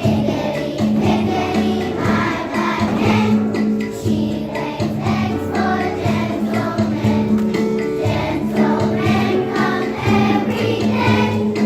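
Children singing a song together over an instrumental backing with a steady bass line.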